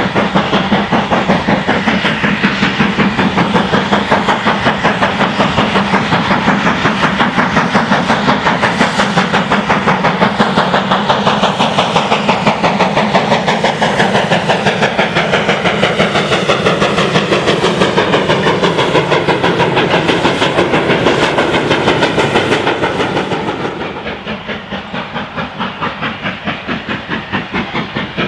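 GWR Manor class 4-6-0 steam locomotive No. 7822 Foxcote Manor running past under steam with its train, its exhaust beating in a fast, even rhythm. Near the end the beat is quieter and duller, heard from further away.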